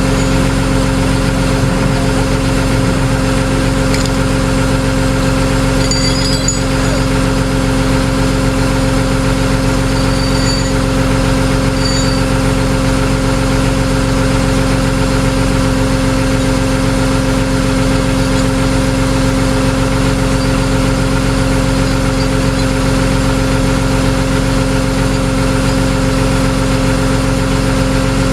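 A vehicle engine idling steadily, an unchanging drone with no revving.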